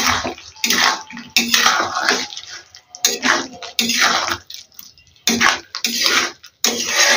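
Metal spatula stirring and scraping a thick, wet masala of potatoes, onion and tomato around a kadai, in about ten quick, even strokes.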